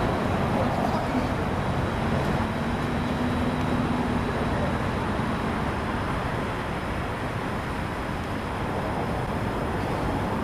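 Steady low outdoor background rumble, with a faint hum that comes in about a second in and fades out about four seconds in.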